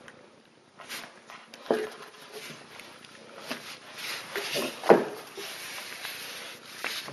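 Husky puppies scuffling over a plush toy in tug of war, with two brief puppy yips, one about two seconds in and a louder one about five seconds in.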